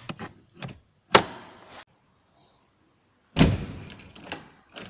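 Car door being worked: small clicks, a sharp loud clack just past one second in, then a heavier thump as the door shuts about three and a half seconds in, followed by a few clicks from the outside door handle being pulled.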